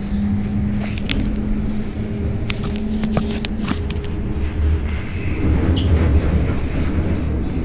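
Bombardier Flexity Outlook tram standing at a stop, humming steadily. About five seconds in, a deeper rumble grows, with a few light clicks.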